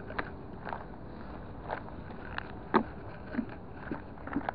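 Footsteps crunching over rubble and dirt, uneven steps roughly every half second, over steady background noise.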